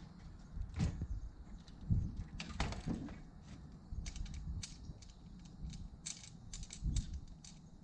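A Brompton folding bicycle being unfolded by hand: metal clicks, clacks and a short rattle as the frame and wheels swing open and the hinges latch, with a few thumps. A quick run of small clicks follows as the handlebar stem is raised and clamped.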